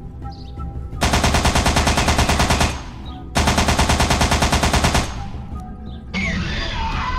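Two bursts of rapid automatic gunfire, a sound effect, each about a second and a half long at roughly eight shots a second. Near the end comes a dinosaur's screeching roar, also a sound effect, whose pitch slides up and down.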